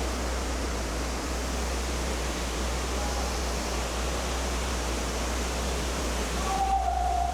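Tukad Cepung waterfall, a drop of about 15 metres inside a circular rock cavern, making a steady, even rush of falling water. A short, clear held tone appears near the end.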